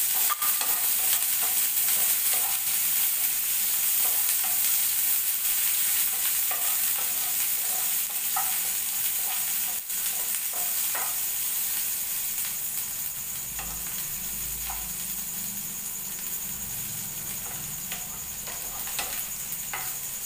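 Chopped onion and green chillies sizzling in hot oil in a non-stick frying pan, stirred with a wooden spatula that scrapes and taps the pan now and then. The sizzle slowly gets quieter as the onion softens.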